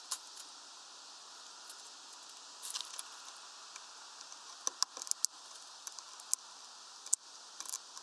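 Small sharp taps and clicks, scattered and in short clusters over a steady hiss: a blue tit pecking at and clambering on a hanging fat-ball feeder.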